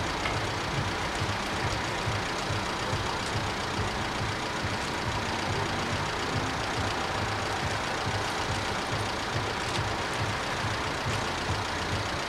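Level-crossing warning bells ringing steadily and without a break while the barriers are down.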